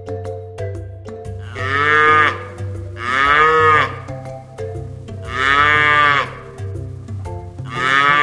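A cow mooing four times over background music, each moo rising and then falling in pitch.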